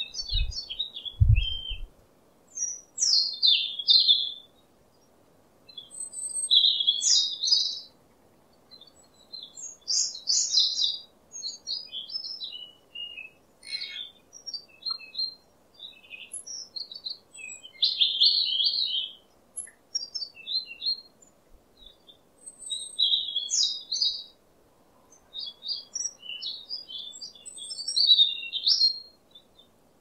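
European robin singing: a run of high, varied, twittering phrases, each a second or two long, with short pauses between them. A few low bumps sound in the first two seconds.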